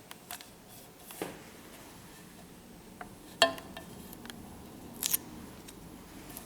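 A few short, sharp clicks and snips from working with double-sided adhesive tape and a phone case. The loudest is a crisp click with a brief ring about three and a half seconds in, followed by a scratchy snip about five seconds in.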